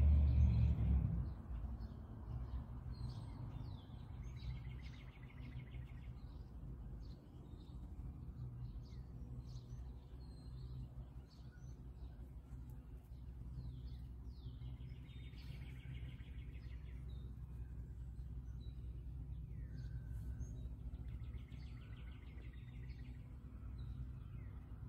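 Outdoor ambience: small birds chirping and giving short trills on and off over a steady low rumble. Background music ends about a second in.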